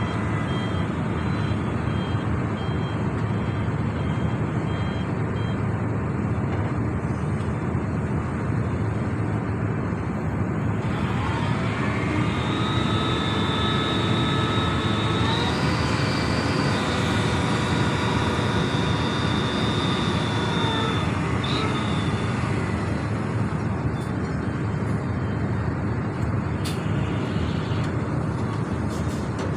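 Heavy diesel engine of a SANY SY365H excavator running steadily at work. About eleven seconds in, a higher whine rises and holds, then fades around twenty-two seconds in.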